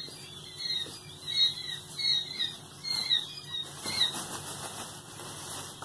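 Quail chicks peeping: many short, high chirps repeating throughout, over the rustle of pine wood shavings being scooped by hand. The rustle is heaviest about four seconds in.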